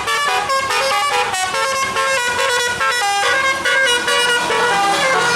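A bus's telolet musical air horn playing a quick melody, one short clear note after another in changing pitches.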